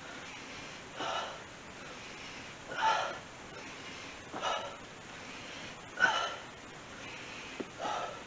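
A man breathing hard from exertion while doing step-ups: five short, forceful breaths or gasps, about one every second and a half, the fourth the loudest.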